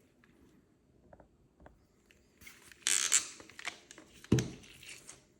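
Handling noise from 3D-printed plastic headphones: a few light clicks, then a scratchy plastic rubbing about halfway through, and a sharp knock near the end.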